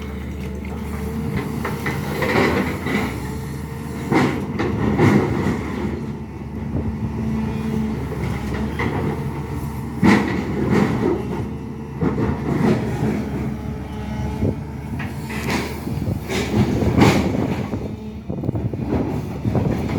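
SANY hydraulic excavator's diesel engine running steadily under load while digging, with repeated metallic clanks and knocks from the bucket and arm, loudest about four, ten and seventeen seconds in.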